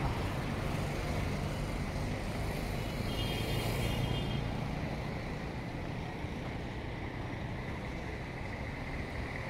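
Street traffic: road vehicles passing with a steady rumble that slowly fades. A brief faint high whistle-like tone comes about three seconds in.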